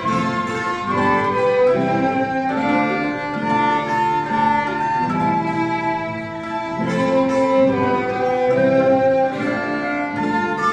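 Small plucked-string ensemble of mandolin-family instruments and classical guitar playing a melody together, with long held notes over a strummed and plucked accompaniment.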